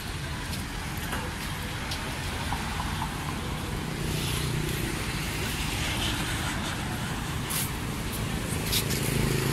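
Steady traffic noise of a busy street, with passing vehicle engines growing louder about four seconds in and again near the end.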